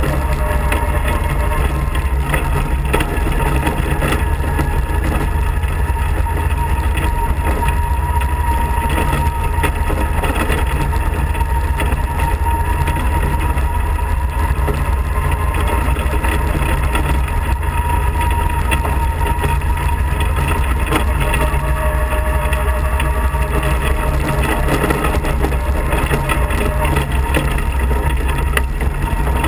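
Off-road kart's engine running steadily under way, with a steady whine and the noise of tyres rolling on a wet gravel track.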